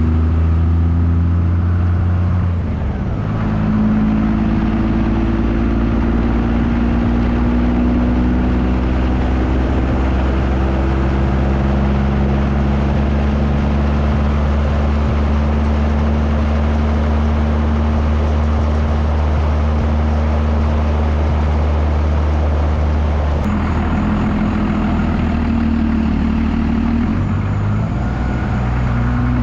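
Diesel pickup truck driving down the road, its engine running steadily under heavy wind and road noise. The engine note shifts about three seconds in and again near the end.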